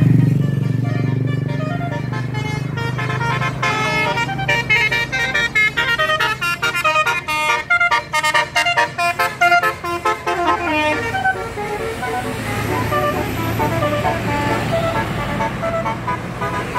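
Bus telolet horn playing a quick tune of short, stepped horn notes over the low rumble of the bus's engine. The notes come thickest in the middle and thin out near the end.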